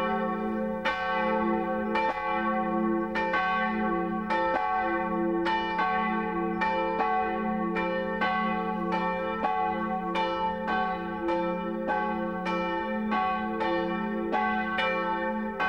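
Church bells ringing: several bells of different pitch struck over and over, about three strokes every two seconds, each stroke hanging on in a long ring.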